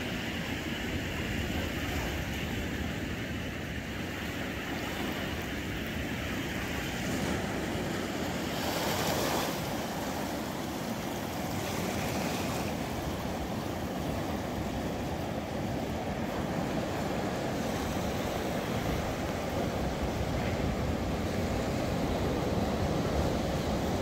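Sea waves washing over low rocks and onto a sandy beach, a steady rush with a louder wash about nine seconds in.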